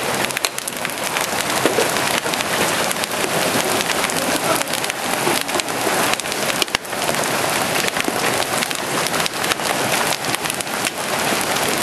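Hailstones nearly the size of golf balls pelting down with heavy rain: a dense, steady hiss packed with sharp clattering hits, one knock standing out about seven seconds in.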